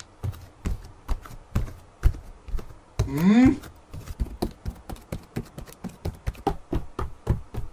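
Cat-meme video soundtrack: a quick, uneven run of sharp clicks and taps. About three seconds in there is one short vocal sound that rises in pitch.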